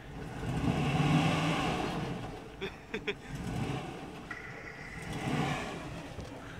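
Pickup truck engine revving up and easing off twice, the first swell about a second in and the second after about five seconds. A few short clicks come about halfway through.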